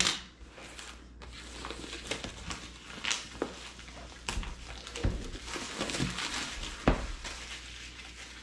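Plastic shrink-wrap on a boxed product crinkling and rustling as the box is handled and turned over, with a click at the start and a few dull knocks of the box on a countertop, the loudest near the end.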